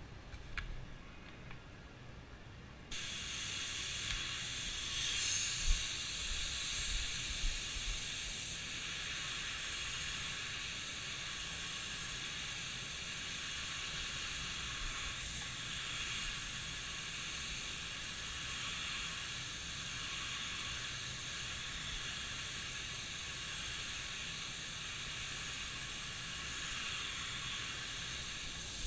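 Gravity-feed compressed-air spray gun spraying primer: a steady hiss of air and atomised paint that starts suddenly about three seconds in as the trigger is pulled.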